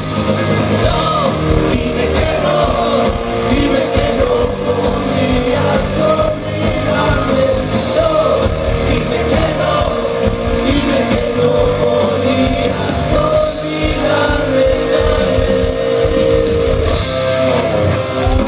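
Rock band playing live, with a singer over loud electric guitars, bass and drums.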